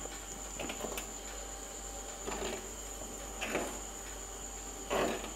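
Steel ladle stirring a boiling curry in an earthenware pot: short soft scrapes and swishes about once a second, the stirring done to keep the frothing curry from boiling over.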